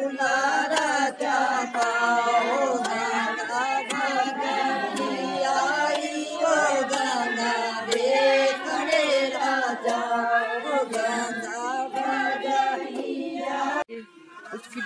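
A group of women singing together without instruments. The singing cuts off abruptly about a second before the end.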